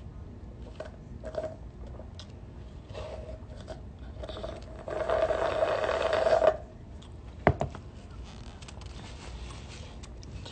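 Slurping a drink through a straw: a few short sips, then one loud slurp lasting about a second and a half a little past the middle. A sharp click follows about a second later.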